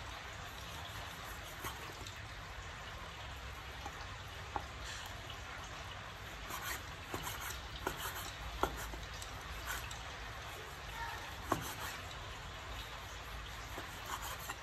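Cleaver blade slicing raw beef and knocking on a wooden chopping board: irregular short, sharp taps about a second or two apart over a steady background hiss.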